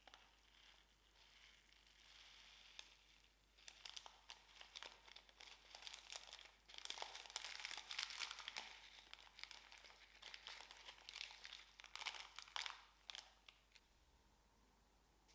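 Slime being handled and squished, giving a faint run of crackling clicks, busiest in the middle and dying away near the end.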